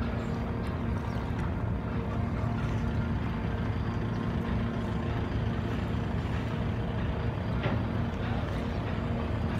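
Vehicle ferry's diesel engine running steadily at idle, a low hum with a steady drone. A single short tick near the end.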